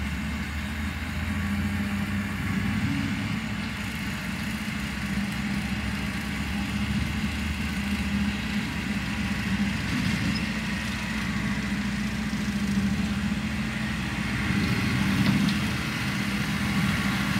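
John Deere 4066R compact tractor's four-cylinder diesel engine running steadily under load as it pulls a 6-foot bush hog rotary cutter through tall grass, a constant low drone.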